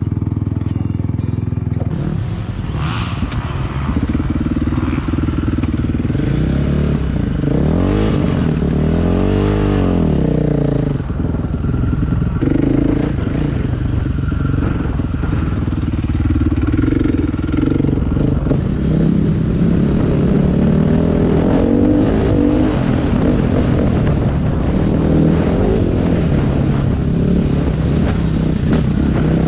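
Dirt bike engine running under load, its pitch rising and falling repeatedly as the throttle is opened and closed.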